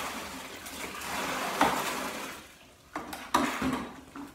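Water poured from a plastic bucket into a plastic tote, the pour tailing off about two seconds in. A few sharp knocks follow as the plastic bucket is set down on the concrete floor, with footsteps.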